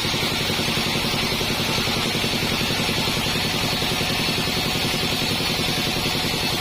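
A modified 48-inch bandsaw sawmill running steadily: a low, evenly pulsing machine drone with a constant hiss above it.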